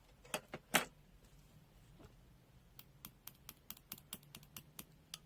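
A multimeter's controls being operated: a few sharp clicks, then a quick run of small clicks about four or five a second as the function is stepped through.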